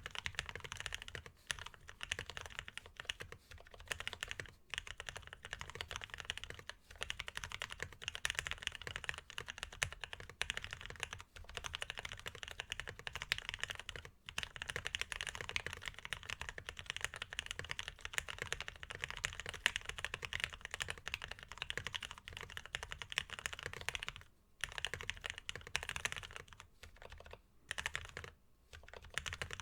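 Continuous fast typing on a custom mechanical keyboard with lubed Polaris Gray 62g linear switches on an aluminium plate, with GOK BoW keycaps and Cherry stabilizers; a dense run of keystrokes with a couple of brief pauses near the end.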